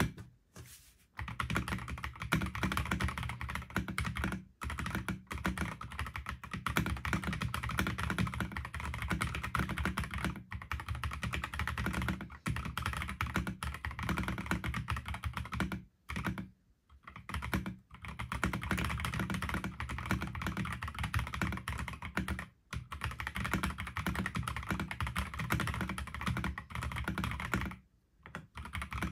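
Fast, continuous typing on a stock Akko PC75B Plus Air mechanical keyboard, with Akko CS Air linear switches, PBT keycaps and a polycarbonate plate and case. There are brief pauses about a second in, around four seconds in and near the end, and a longer one past the middle.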